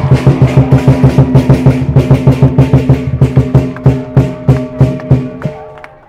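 Loud music over the rally's loudspeakers: a rapid, heavy drum beat over a steady low bass note, stopping near the end.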